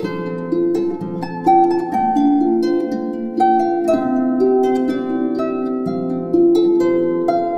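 Background music: a slow melody of plucked string notes, each one struck and left to ring, several sounding together.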